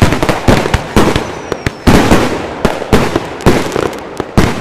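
Consumer fireworks going off in quick succession: loud irregular bangs, several a second, with crackling between them and a faint whistle about a second in.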